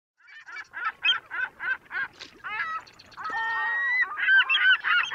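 Gulls calling: a quick series of short yelping calls, then a longer drawn-out call a little over three seconds in, and several birds calling over one another near the end.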